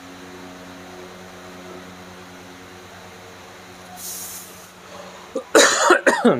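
A man coughs several times into his hand near the end, in loud short bursts. A steady low hum runs underneath, and a short high hiss comes about four seconds in.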